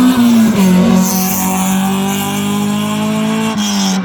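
Hillclimb race car engine running hard at high revs, holding a steady note that dips about half a second in and drops again near the end.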